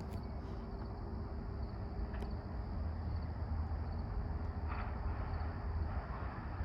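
Low rumble of an approaching Amtrak passenger train led by a P32AC-DM diesel locomotive, heard from a distance and growing slightly louder.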